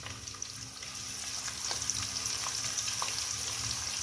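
Sliced onions sizzling in hot ghee, a steady high hiss that grows slightly louder, with a few faint ticks and pops. The onions have just gone into the heated ghee and are starting to fry toward golden brown.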